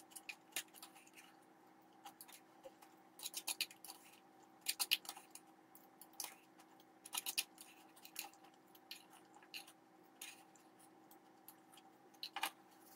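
Someone eating a beet vinaigrette salad with a fork: quiet crunching chews and small scrapes of the fork in the bowl, in short clusters of quick clicks every second or two, over a faint steady hum.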